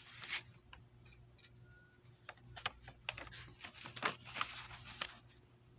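Paper pages of a hand-made picture book being turned and handled: a brief rustle just after the start, then a quick run of paper crinkles and taps from about two to five seconds in.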